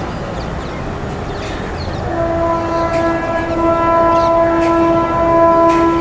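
Electric locomotive's air horn sounding one long, steady blast of several tones together, starting about two seconds in, over the rumble of a passing train with a few faint rail clicks.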